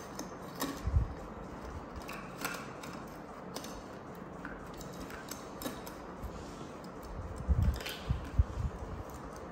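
Plastic bottles and containers clicking and knocking as a baby monkey rummages through them in a wicker basket, with a few dull thumps about a second in and several more near the end.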